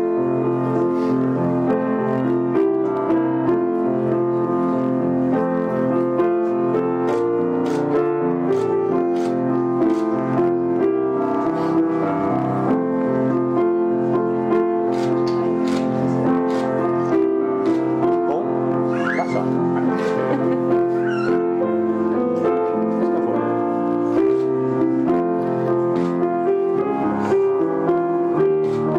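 Piano music playing a slow, steady progression of sustained chords, the processional for the bride's entrance.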